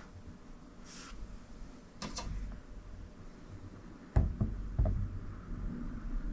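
Low room noise with a few soft knocks and thumps, the loudest a low thump about four seconds in; no Morse tone sounds.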